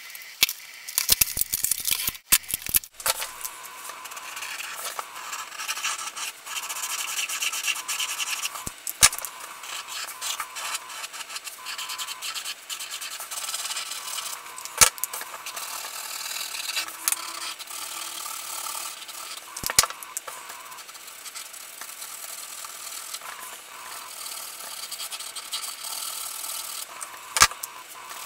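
BIC Mark-It permanent marker tips scratching and rubbing on a small paper card as areas are coloured in. A quick cluster of clicks and knocks comes in the first few seconds, then a single sharp click now and then.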